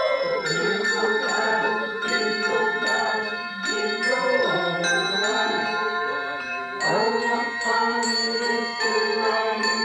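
Bells ringing in a steady run of strikes, about two a second, with several notes overlapping and ringing on.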